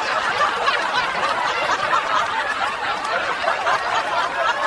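People laughing steadily, a dense mix of voices chuckling and snickering.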